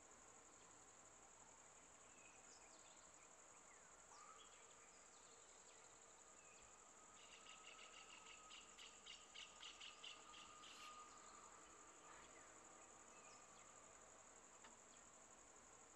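Faint forest ambience: a steady high-pitched insect drone, with a rapid run of pulsed chirps from about seven to eleven seconds in and a few scattered short bird chirps.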